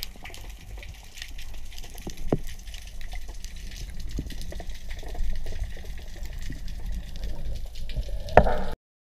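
Underwater ambience heard through a diver's camera housing: a steady low rumble of water with scattered short clicks, and a louder knock near the end before the sound cuts off suddenly.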